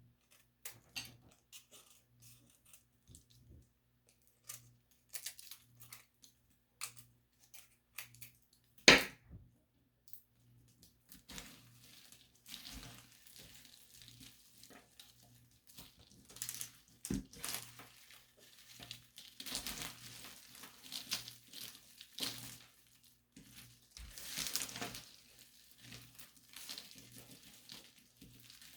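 Close-up ASMR handling sounds: scattered light clicks and taps, one sharp knock about nine seconds in, then from about eleven seconds a denser run of crackling and crushing.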